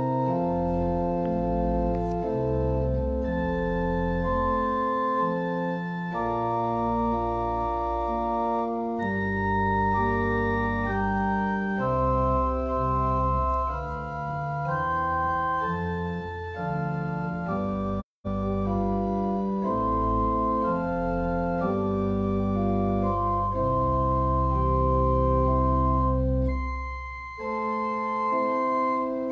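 Church organ playing slow, sustained chords over deep held bass notes, the chords changing every second or two. The sound cuts out for a split second about eighteen seconds in.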